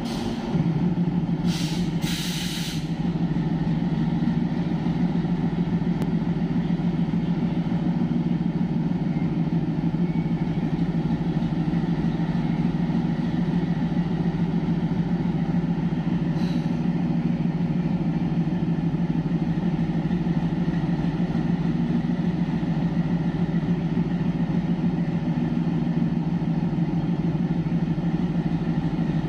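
WDG-3A locomotive's ALCO 16-cylinder diesel engine idling with a steady low hum. Two short air hisses come about two seconds in, and another brief hiss about halfway.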